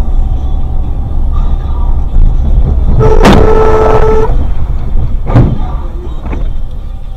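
Heavy road and engine rumble from a moving car, with a car horn sounding once for about a second around three seconds in, then two sharp knocks.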